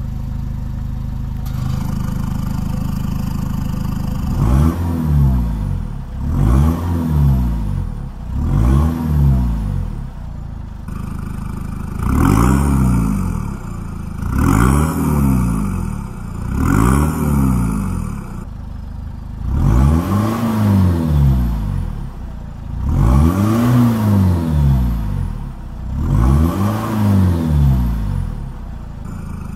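Peugeot 206's 2.0 HDi four-cylinder turbodiesel idling, then revved in short blips, about ten times, each rising and falling back to idle. It sounds through a homemade exhaust with twin tailpipes and a remote-switched exhaust valve, heard first with the valve open and then closed.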